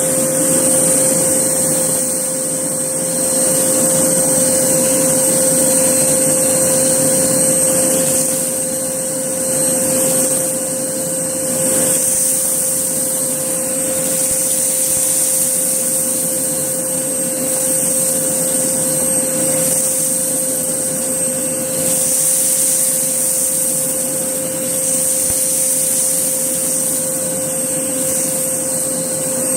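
Hoover Blaze canister vacuum cleaner running continuously with its parquet brush head, a steady motor noise with a steady mid tone and a high whine. The level swells and dips gently every few seconds.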